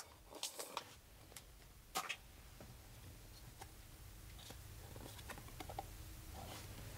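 Faint, scattered ticks and soft rustles of Pokémon trading cards being handled, the most distinct about two seconds in, over a low steady hum.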